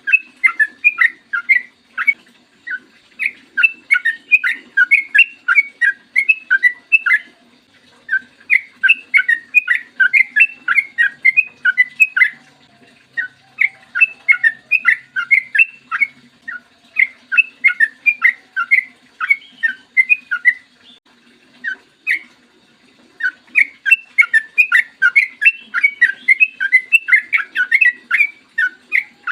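Yellow-vented bulbul (trucukan) singing a fast, chattering song in long runs of quick notes, with short breaks between phrases.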